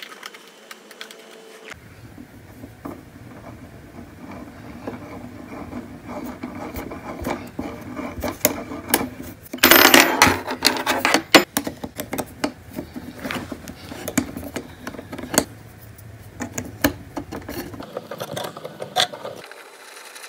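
Irregular clicking and rattling of small metal screws and cam bolts being handled and fitted into holes in a white laminated particleboard cabinet panel, with a louder clatter lasting a second or so about ten seconds in.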